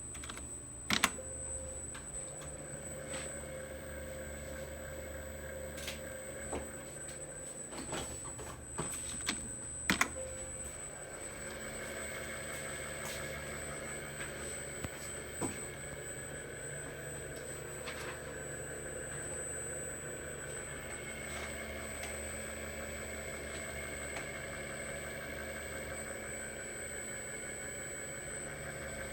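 Servo drive and motor on a test bench running steadily: a constant high-pitched whine with a low electrical hum beneath. Several sharp clicks in the first ten seconds, after which the whine and hum take on further steady tones.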